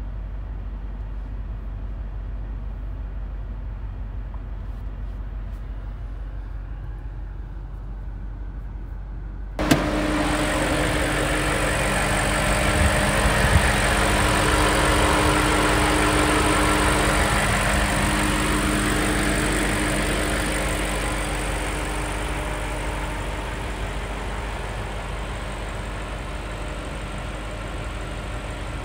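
BMW X6M's 4.4-litre twin-turbocharged V8 starting with a sudden catch about ten seconds in, swelling for a few seconds, then easing back to a steady idle. Before the start there is only a low steady hum.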